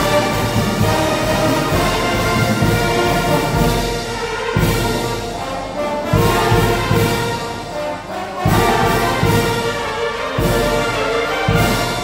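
Filipino brass band playing, the full ensemble of brass and woodwinds sounding together, with percussion strokes marking the beat from about four seconds in.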